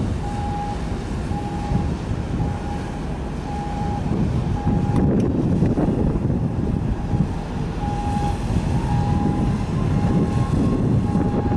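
Harbour-side rumble of boat engines and wind on the microphone, with a short electronic beep repeating about once a second.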